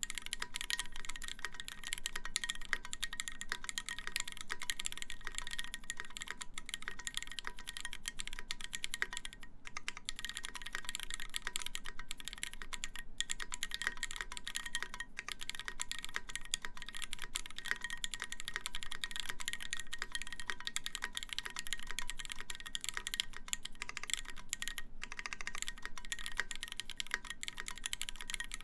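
Continuous fast typing on a custom mechanical keyboard with lubed Cherry MX Black linear switches, a stainless steel plate and GMK keycaps: a dense stream of keystroke clacks, broken by brief pauses a few times.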